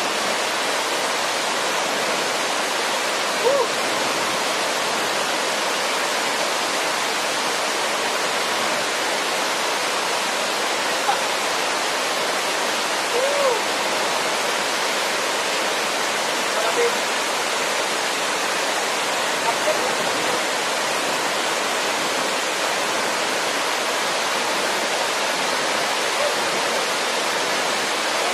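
Steady rush of a large waterfall pouring over rock, heard close to its base. A few brief faint calls rise over the water now and then.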